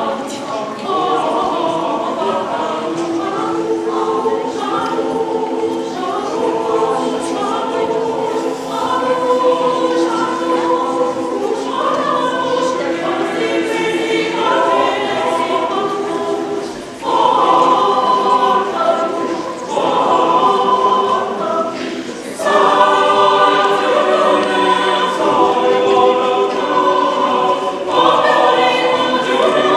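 Mixed choir of women's and men's voices singing sustained chords in several parts, with short breaks between phrases and louder singing in the second half.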